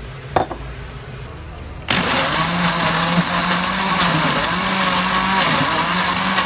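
Countertop electric blender switched on about two seconds in, its motor running loudly as it chops whole onions, garlic and ginger, the pitch wavering slightly. A light knock comes about half a second in.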